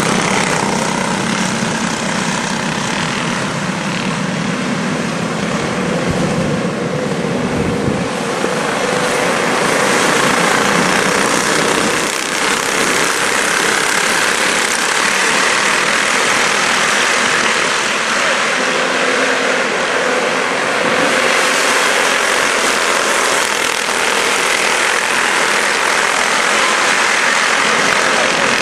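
A pack of quarter midget race cars' small single-cylinder engines running together as they circle the track, a steady loud buzz with no break.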